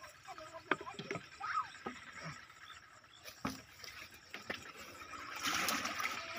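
Water being scooped from a plastic drum into a plastic bucket: scattered knocks of plastic against plastic, then about a second of water splashing and pouring near the end.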